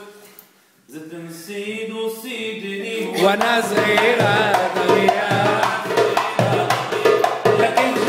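Darbuka (goblet drum) hand drumming that starts about three seconds in, a steady beat with a deep stroke roughly once a second and quicker light strokes in between. A man's voice sings a wavering Middle Eastern melody over it.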